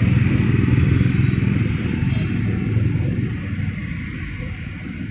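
Low rumble of a passing motor vehicle's engine, such as a motorcycle, fading gradually over the last two seconds.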